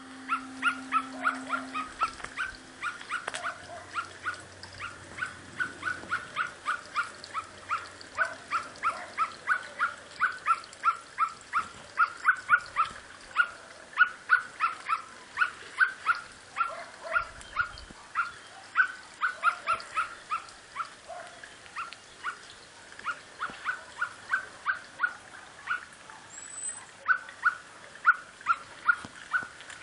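Common blackbird giving a steady series of short, sharp alarm calls, about three a second, scolding a cat close by in the tree.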